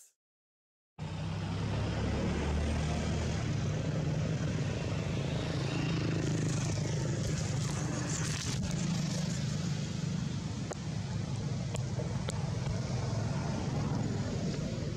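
Steady outdoor background noise, a low hum with a hiss over it and a few faint clicks, starting about a second in after a brief silence.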